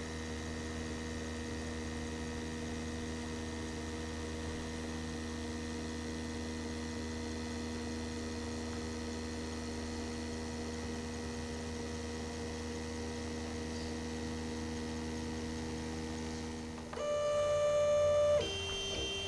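Diode laser engraver running at work: a steady electrical hum with a faint whine. Near the end it turns into a louder whine that steps down to a lower pitch and back up as the laser head moves.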